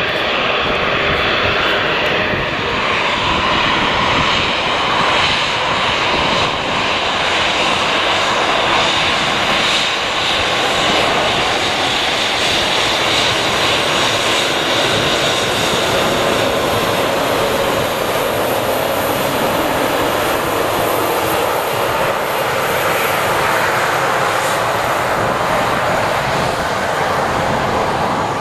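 Embraer E190 twin-jet's turbofan engines running at taxi power as the airliner taxies close past, a steady jet whine and rumble.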